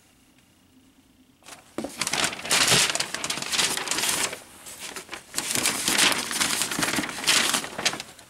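Large paper instruction sheet rustling and crinkling as it is handled and turned over. It starts about a second and a half in, eases briefly about halfway, and stops near the end.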